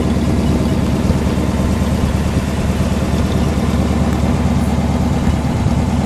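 1955 Ford Thunderbird's 292 Y-block V8 idling steadily, heard close to the exhaust tips that exit through the rear bumper.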